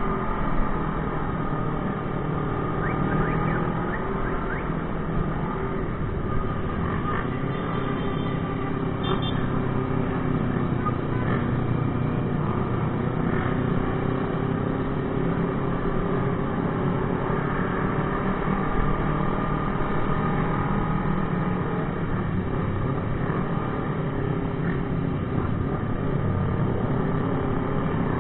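Motorcycles riding in a group, heard from one of the bikes in the convoy: steady engine sound over a low rumble, its pitch rising and falling gently with speed.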